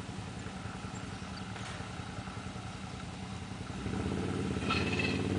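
ATV engine idling steadily, then revving up and getting louder about four seconds in as the quad pulls forward.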